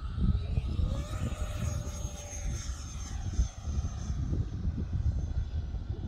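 Electric ducted fan of an E-flite F-15 Eagle 64 mm RC jet whining as it flies past, the whine rising about a second in and then sliding slowly down in pitch. Gusty wind rumble on the microphone underneath.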